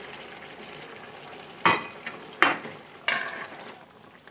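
Chicken curry sizzling in a metal kadai after a little hot water has gone in. A metal spoon stirs it and knocks against the pan three times in the second half.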